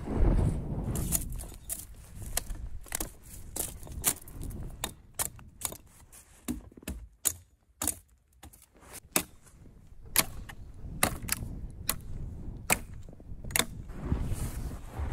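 A series of sharp, irregular snaps and clicks, about one or two a second, with a low rumble right at the start.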